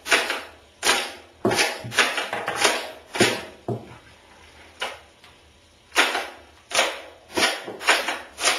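The action of a modified Steyr AUG bullpup rifle being cycled by hand: a run of about a dozen sharp metallic clacks, each with a short ringing tail, coming irregularly about half a second to a second apart with a longer gap near the middle.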